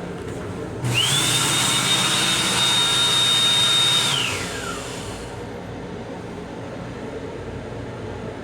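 An electric motor in an M7 railcar restroom fixture starts with a loud rushing hiss and a whine that rises quickly to a high steady pitch, runs for about three seconds, then winds down with a falling whine. A steady low rumble runs underneath.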